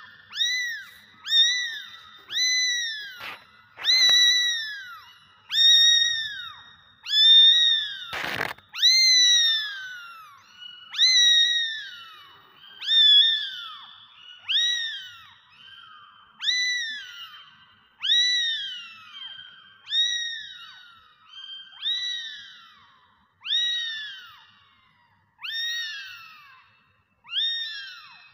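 Very young kitten meowing over and over, about one high-pitched call every second or so, each rising and then falling in pitch. A short knock about eight seconds in.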